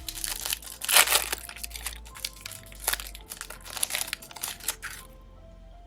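Plastic wrapping and packaging of a trading-card hobby box being torn and crumpled open, a dense run of crackling and crinkling that stops about five seconds in. Faint background music runs underneath.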